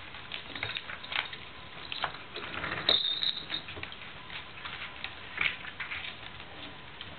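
Kittens playing in a plastic circular ball-track toy: scattered light clicks, rattles and scrabbling of paws on the plastic, with a short high squeak about three seconds in.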